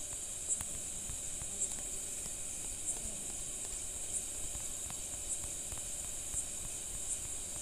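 Steady, faint high-pitched hiss of background noise, with a faint pulse about once a second.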